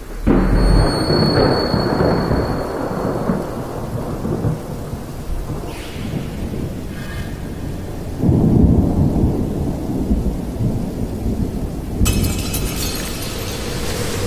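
Electronic soundscape of an interactive projection-and-sound installation, triggered by lighting a statue: a sudden deep rumbling wash of noise sets in just after the start and slowly fades, swells again about eight seconds in, and a brighter hiss joins near the end.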